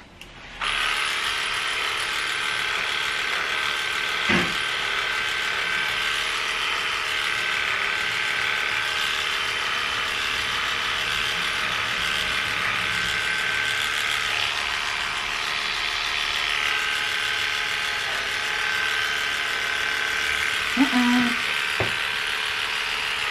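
Electric dog grooming clippers switched on about a second in and running with a steady hum, shaving off a puppy's matted ear coat. A couple of brief sounds cut in over the hum, one about four seconds in and a louder one near the end.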